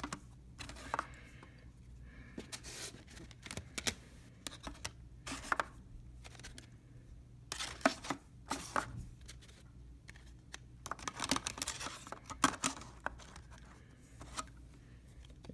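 Plastic 3.5-inch floppy disks being handled and pushed into a plastic disk case: irregular clicks, knocks and scrapes of plastic on plastic, with a few sharper clacks about eight and twelve seconds in.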